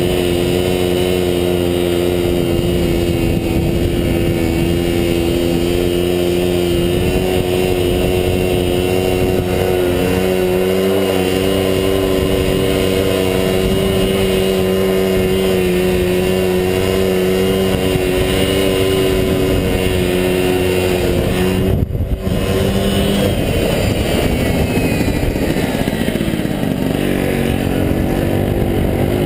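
Moped engine running at steady revs while riding. Just over two-thirds of the way through there is a brief dropout, then the engine note falls and rises again as the rider slows.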